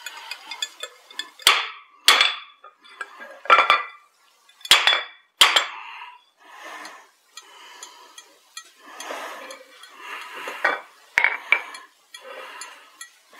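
Hammer blows on steel as a drift is driven into the hot eye of a hand-forged axe head: sharp, ringing metal strikes at uneven intervals, about five heavy ones in the first six seconds and two more later, with lighter clinks and scraping of tools between.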